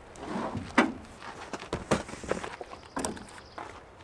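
Camping gear being handled and unloaded from a pickup truck's bed: a string of knocks and clunks with some rustling in between, the sharpest about a second in.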